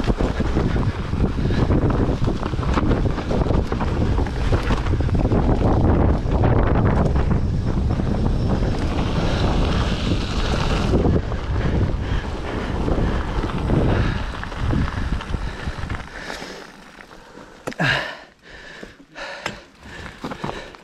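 Wind rushing over the camera microphone, with tyre and trail rumble from a hardtail mountain bike riding downhill at speed. The rush drops away near the end, leaving a few sharp knocks and clicks.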